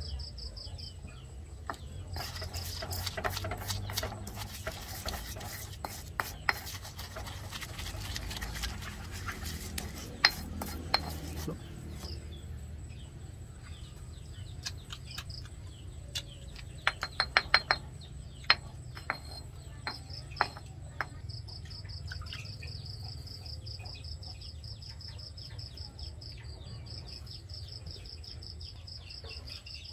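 Stone pestle grinding salt and chili in a stone mortar, scraping and knocking for about ten seconds, followed later by a short run of sharp knocks. Crickets trill steadily throughout.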